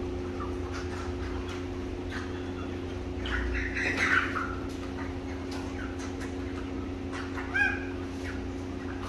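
Caged chickens clucking and squawking: a flurry of calls about three to four seconds in and one sharp squawk near the end, with softer calls in between, over a steady mechanical hum.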